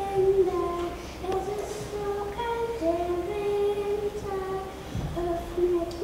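A young girl singing a melody solo, holding each note and stepping from pitch to pitch.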